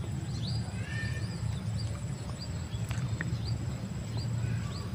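Birds chirping in short scattered calls over a steady low rumble, with a thin high steady tone throughout.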